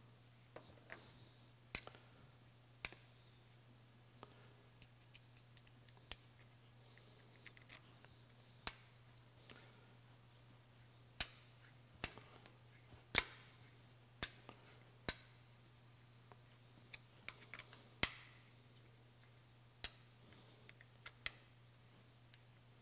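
Scattered, irregular sharp metallic clicks and taps of a hex key and small socket cap screws against a cast-aluminium way wiper and the lathe carriage as the wiper is screwed in place. A faint steady low hum runs underneath.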